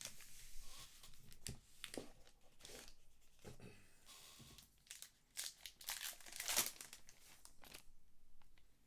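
Trading card packs and cards being handled: irregular crinkling and rustling, with a busier stretch about five to seven seconds in.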